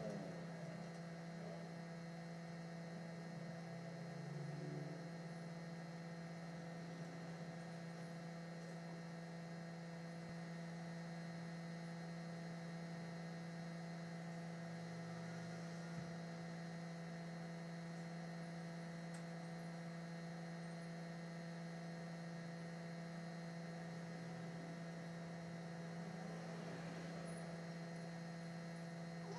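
Steady electrical hum: one low tone with several fainter higher tones above it, unchanging throughout, with a single faint click about sixteen seconds in.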